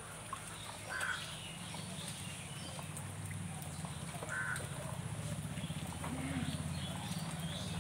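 Young ducks bathing in a shallow puddle, splashing water with quick dips and wing flicks, over a steady low rumble. Two short, harsh bird calls come about a second in and again about four and a half seconds in.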